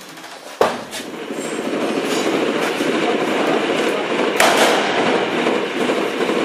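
Gunfire in a firefight: a sharp shot about half a second in, then a continuous rapid rattle of automatic fire echoing through the bare room, with another loud shot about four seconds in.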